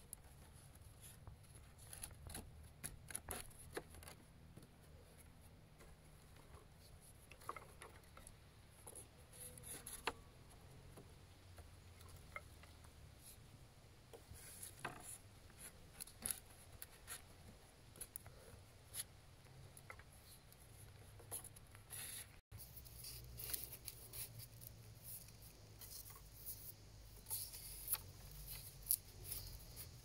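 Thin green sticks rubbing, scraping and clicking against each other and against upright wooden stakes as they are woven in by hand: faint, with scattered small clicks.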